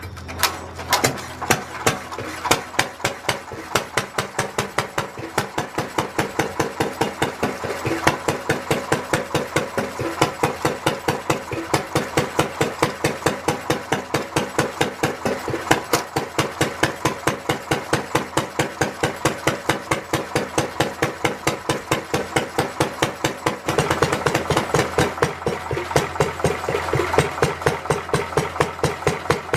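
A Lister D 1.5 HP single-cylinder stationary engine starting up: its firing pulses come slowly for the first second or two, then pick up speed and settle into a steady, even beat.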